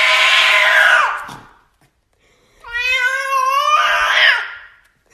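Domestic cat yowling: two long, loud calls, the first raspy and the second clearer and slightly rising in pitch.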